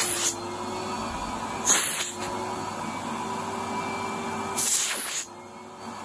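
Numatic Henry HVR200 vacuum cleaner running with a steady hum. There are short, loud bursts of rushing noise at the start, about two seconds in and again near five seconds. The sound drops noticeably quieter just after five seconds.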